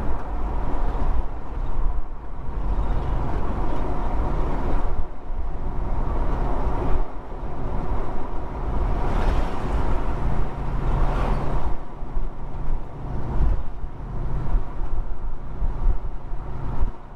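Holden HK's freshly rebuilt V8 engine running at road speed with tyre and road noise, heard from inside the cabin: a steady drone that grows stronger about ten seconds in. It sounds quiet and good.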